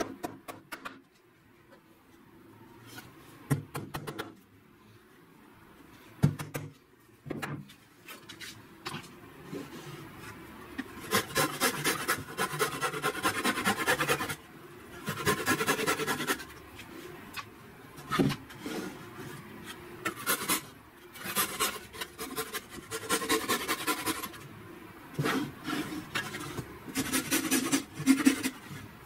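A few sharp hammer knocks on wood, then a hand-held flush-cut saw laid flat on the board, rasping through wood in bouts of rapid back-and-forth strokes as it trims parts flush with the surface.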